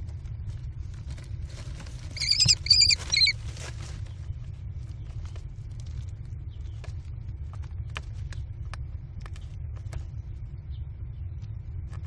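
American kestrel nestlings calling: a burst of shrill, rapid calls about two seconds in, lasting just over a second. Afterwards come scattered clicks and scratches of feet on the wood-chip floor of the nest box, over a steady low rumble.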